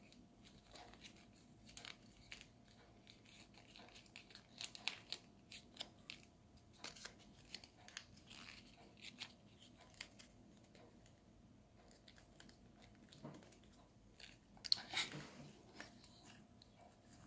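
Faint crinkling and crackling of folded colored origami paper being pressed and shaped by hand, in scattered small clicks, with a louder crinkle about fifteen seconds in.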